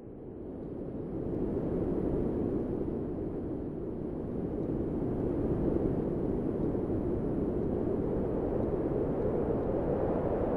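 Wind sound effect: a low, steady rush of wind that fades in over the first two seconds and then holds.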